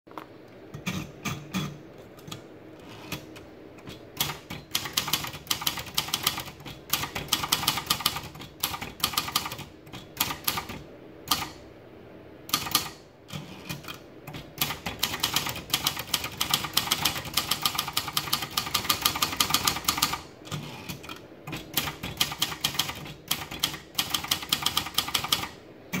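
Silver-Reed SR100 manual portable typewriter being typed on: fast runs of sharp key-and-typebar clacks, broken by short pauses. The first few seconds hold only a few scattered clicks while a sheet of paper is fed into the platen.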